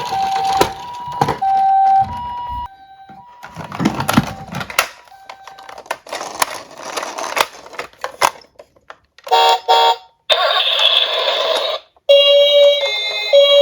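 Toy emergency-vehicle sirens: a two-tone siren alternating between two pitches at first, then a different switching siren tone near the end. Between them, diecast toy cars clatter and roll down a slope, with many sharp clicks.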